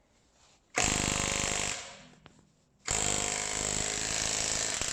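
Mastercraft 20V brushed cordless 1/2-inch impact wrench hammering on a lock nut in two bursts: a short one of about a second, then after a pause a longer one of nearly three seconds.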